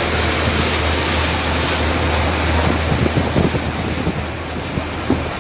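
Passenger boat under way: the steady low drone of its engine under the rush of churning wake water, with wind buffeting the microphone.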